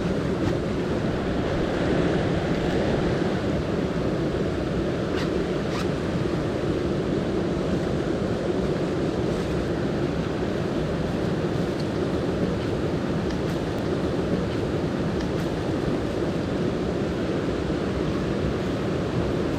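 Mountain stream water rushing steadily over rocks, with a few faint ticks in the first half.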